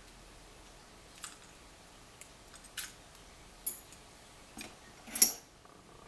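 A handful of short metallic clicks and clinks as lockpicking tools and a deadbolt lock are handled, the loudest near the end.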